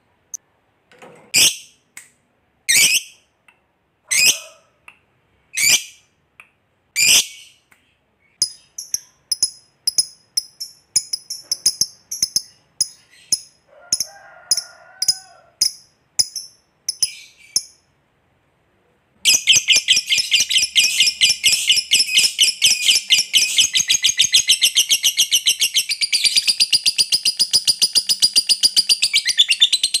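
Lovebird calling. First a few single sharp chirps about a second and a half apart, then quicker high chirping. After a short pause about 19 seconds in comes a long, fast, unbroken chattering trill, the long chatter that fanciers call "ngekek panjang".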